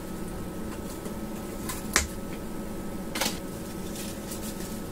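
Scattered clicks and crackles of brittle, charred circuit-board material and debris being picked and crumbled away by hand from a fire-damaged amplifier board, the sharpest click about two seconds in and another about a second later. A steady low hum runs underneath.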